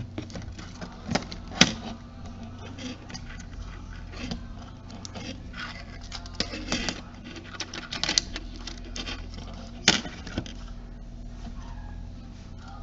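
Small clicks, taps and rattles of a partly dismantled camcorder and small tools being handled on a work surface, with two sharper knocks about one and a half seconds in and near ten seconds, over a steady low hum.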